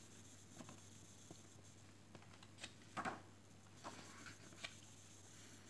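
Faint handling noises of a picture book, soft rustles and taps as it is held and its pages are opened, the loudest about three seconds in, over a faint steady hum.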